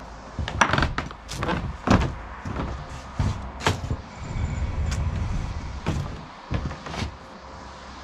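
Woodland Mills bandsaw sawmill head moved by hand along its steel track: a string of sharp metal clanks and knocks, with a steady rolling rumble about four seconds in.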